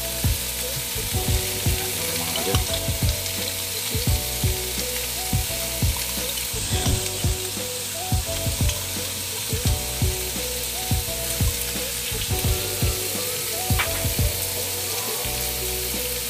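Ground pork and shrimp sizzling in a frying pan, a steady hiss, with a quiet tune of stepped notes and soft knocks underneath.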